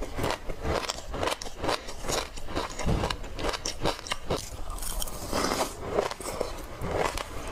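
Close-up chewing and crunching of a mouthful of food, with irregular wet clicks and crackles, and a spoon scooping food in a glass mug.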